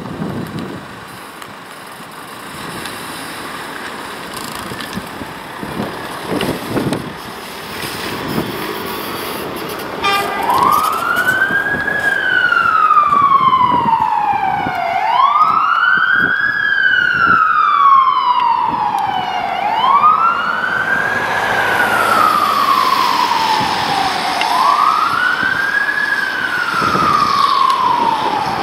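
Fire engine pulling out, its engine and road noise first. About ten seconds in its siren starts: a slow wail that rises quickly and falls slowly, repeating about every four and a half seconds.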